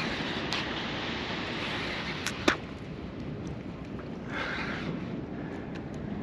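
Steady wind noise on the microphone over open shallow bay water, broken by a few sharp clicks, the loudest about two and a half seconds in.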